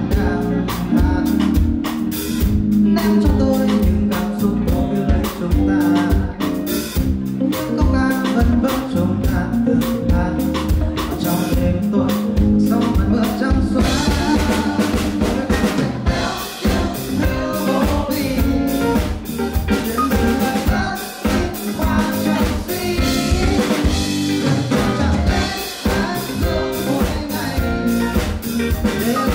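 Live band playing a song with a male singer and drum kit, the drums keeping a steady beat that gets busier with cymbals about halfway through.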